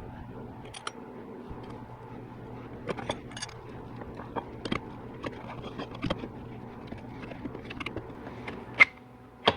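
Metal transmission parts from a 4L80E sprag and drum assembly clicking and knocking irregularly as they are worked loose by hand, over a steady low hum. Two sharp clicks come near the end.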